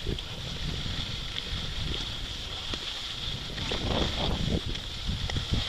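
Wind rumbling on the microphone while moving fast downhill, over a steady hiss of skis sliding on groomed snow, with a rougher scraping stretch about four seconds in.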